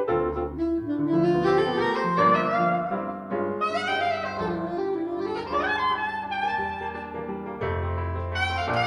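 Soprano saxophone and piano playing jazz. The saxophone carries the melody, with a rising run about halfway through, over piano chords and low bass notes.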